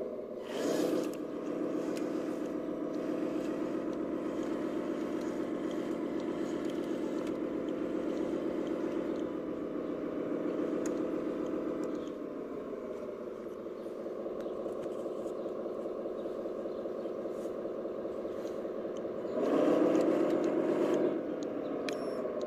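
Radio-controlled Iveco 8x8 dump truck model driving, its onboard sound unit playing a steady truck-engine drone. The revs swell briefly about a second in and again near the end, and drop off at about twelve seconds.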